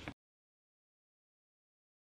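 Dead digital silence. The sound cuts off abruptly a moment after the start.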